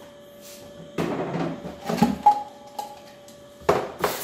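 Plastic strainer and lid parts of a rotary wet tumbler drum being handled and knocked together against the sink, giving a few sharp clacks and rattles about a second in, around two seconds in and again near the end, over a faint steady hum.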